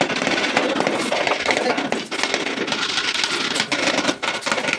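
Hands tapping and rubbing across a glazed ceramic wall tile, pressing it into its mortar bed: a dense scuffing noise with a few sharper knocks.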